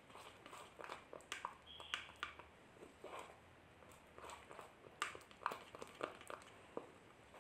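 Metal spoon stirring a thick, sticky paste of turmeric powder and honey in a plastic bowl: faint, irregular scrapes and taps against the bowl.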